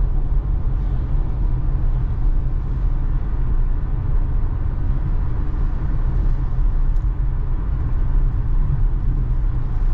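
Steady low road and tyre rumble heard inside the cabin of a Tesla electric car cruising at freeway speed, with no engine note.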